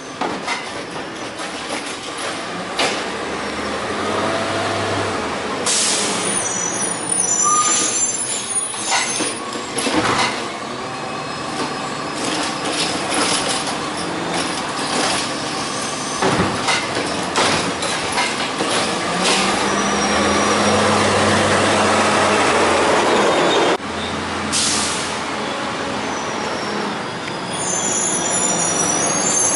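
CNG-powered CCC LET2 garbage truck with a Heil Rapid Rail automated side-loader body, its engine running as it creeps along and pulls up to the curb, pitch rising and falling with the throttle. Sharp air-brake hisses about six seconds in and again near the end.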